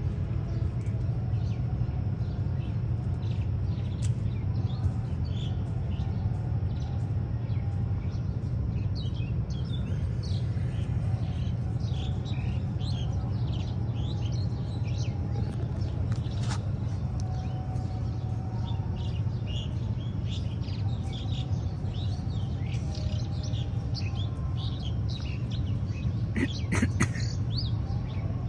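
Small birds chirping in many short, high calls, busiest in the second half and briefly thickest near the end, over a steady low background rumble.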